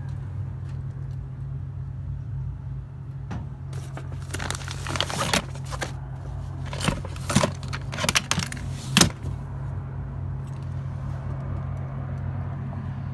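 Steady low hum of a running vehicle, with a flurry of small metallic clinks and rattles, like keys or tools being handled, between about four and nine seconds in; the last clink, at about nine seconds, is the loudest.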